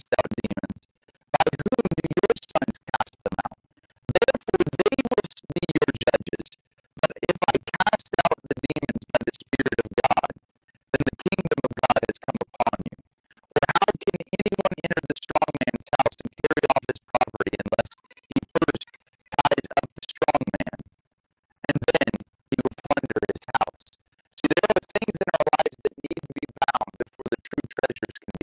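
A man's voice speaking, chopped up every second or so by sudden dropouts into dead silence, so that it comes out garbled and stuttering.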